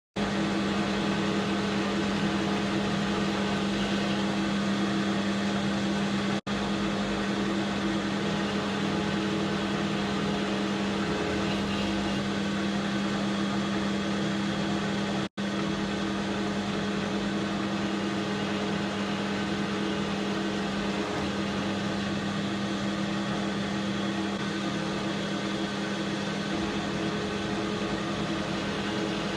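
AL960B metal lathe running steadily under power, its motor and gear train humming, while screw-cutting a 32 TPI thread in 4140 steel. The sound drops out for an instant twice.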